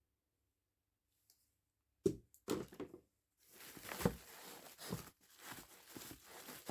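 Items being handled during unpacking: a few sharp knocks about two seconds in, then soft rustling and handling noise.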